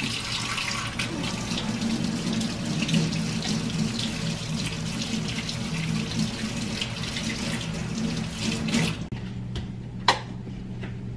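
Water running from a tap into a sink, shut off abruptly about nine seconds in, followed by a few light clicks.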